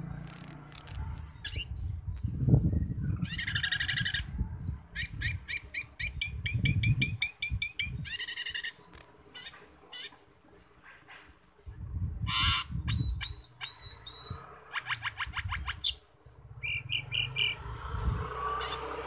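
A cucak keling (Asian glossy starling) singing a loud, varied song: high thin whistles, fast buzzy trills and rattles, and strings of chattering notes, with one sharp loud note about halfway through.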